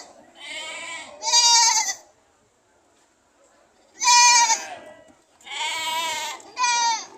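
Goats bleating loudly in high, wavering cries: two calls close together, a two-second pause, then three more calls in quick succession.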